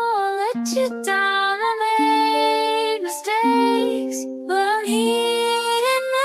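Background music: a gentle melody with a sung or sustained lead line over plucked accompaniment.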